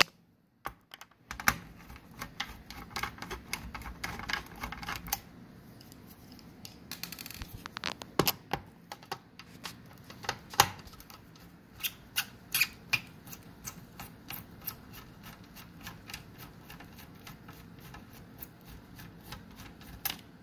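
Irregular small clicks, ticks and scrapes of a screwdriver backing T10 Torx screws out of a DVR's hard-drive bracket, with the loose screws and plastic parts being handled. A few sharper clicks stand out among them.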